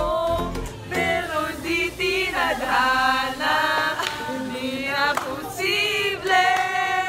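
A few women singing together to the camera, their voices holding long drawn-out notes.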